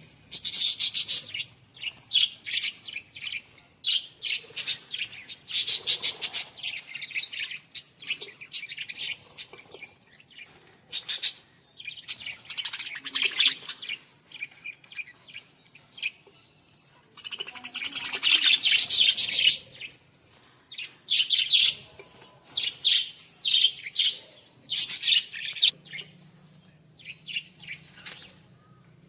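Pet budgerigars (Australian parrots) chirping and chattering in rapid high-pitched bursts, with a louder, busier stretch about two-thirds of the way through.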